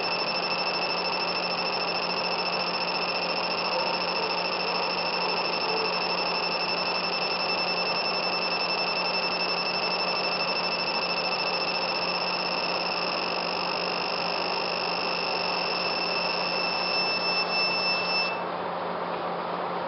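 Laser engraving machine marking a logo into an anodized aluminium keyring: a steady high-pitched whine over the steady rush of the fume extractor, the whine cutting off suddenly near the end as the engraving pass finishes while the extractor keeps running.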